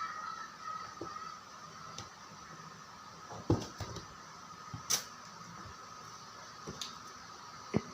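Cats at play: a few scattered thumps and knocks, the loudest about three and a half seconds in, over a faint steady high whine.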